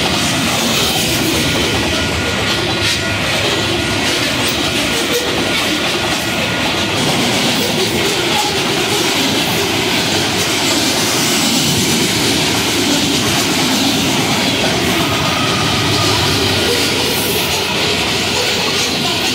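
Freight train's cars rolling past close by: steady wheel-on-rail noise with clickety-clack and a faint wheel squeal.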